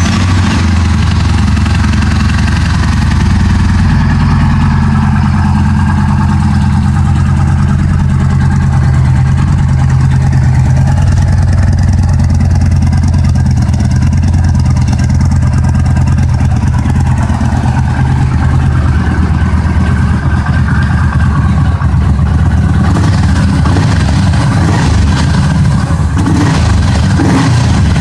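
2014 Yamaha Bolt's air-cooled V-twin running at a steady idle through its stock exhaust, just after being started.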